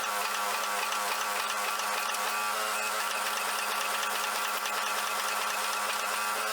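A machine running steadily with a constant hum.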